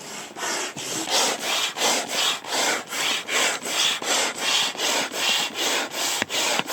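A pump inflating an air mattress, worked in quick, even strokes of about three a second, each stroke a short rasping rush of air. The strokes stop suddenly near the end.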